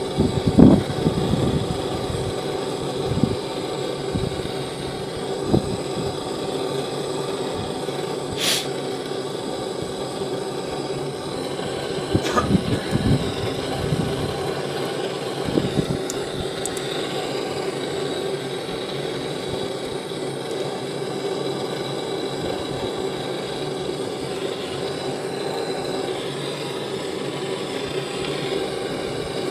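Handheld gas cartridge torch burning steadily with a hiss, a faint steady tone running through it, and a couple of sharp cracks in the middle.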